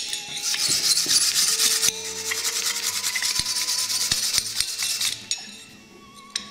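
Vigorous hand rubbing of a freshly tempered forged steel axe head lying on the anvil face: a fast, dry, scratchy scrubbing that stops about five seconds in.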